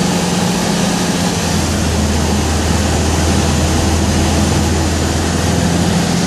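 Engine and propeller of a single-engine light aircraft running in flight, heard from inside the cockpit as a loud, steady drone. Its low hum drops in pitch about a second and a half in and rises back near the end.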